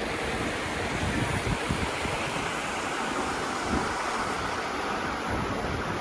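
Steady rushing of a mountain river, the East Fork of the Bitterroot River, with light wind buffeting the microphone.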